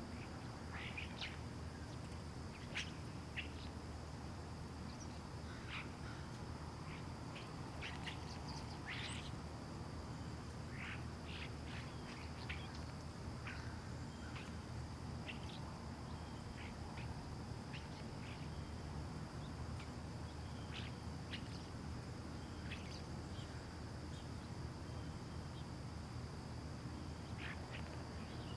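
Residential ambience: birds giving short, scattered chirps over a steady low hum, with a thin, steady high-pitched tone behind them.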